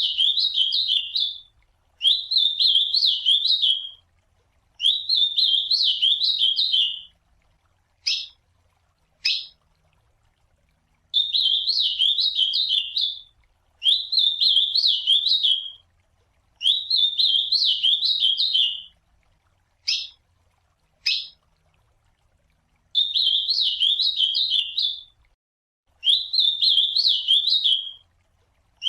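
Ultramarine grosbeak (azulão) singing: about nine song phrases, each a quick run of up-and-down whistled notes lasting about two seconds, repeated every few seconds. Twice a pair of short, sharp call notes comes between the songs.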